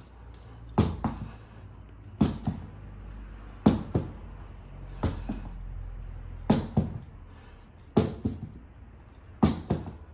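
A dirt-bike wheel with a knobby tyre being dropped and bounced on a tiled floor: seven thuds, about one every second and a half, each followed by a smaller rebound knock. This is done to spread the silicone lubricant around inside the tyre during a TuBliss install.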